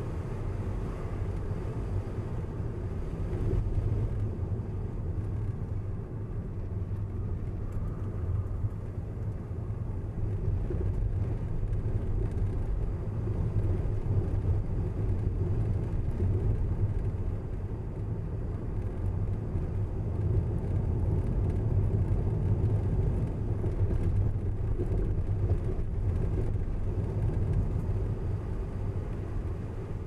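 A car driving along the road: a steady low rumble of tyres and engine, swelling slightly at times.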